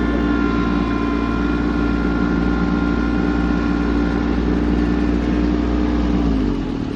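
Kubota tractor's diesel engine running steadily while pulling a side delivery hay rake, then throttling down near the end, its pitch and loudness dropping.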